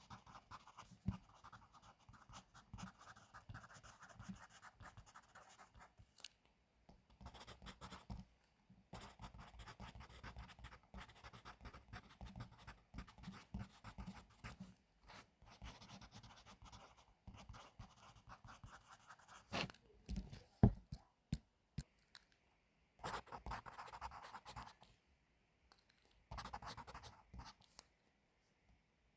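Pencil writing on paper: runs of scratchy strokes broken by short pauses, with a sharp tap about two-thirds of the way through.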